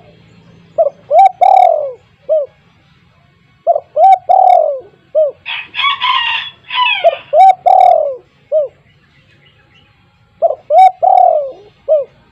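Spotted dove cooing: four repeated phrases, each a few short coos, a longer falling coo and a short closing note, about three seconds apart. A harsher, higher chirping sound comes between the second and third phrases.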